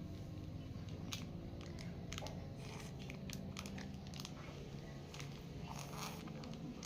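Close-up eating sounds: scattered sharp clicks and crunches of coconut jelly being chewed.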